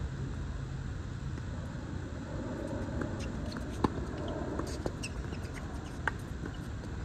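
Tennis racket strikes on the ball during a doubles rally on a hard court: sharp pops, the loudest about four seconds in and another about two seconds later. Short high squeaks from sneakers on the court come in between.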